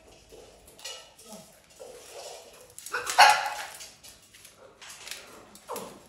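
A dog barking, with one loud bark about halfway through.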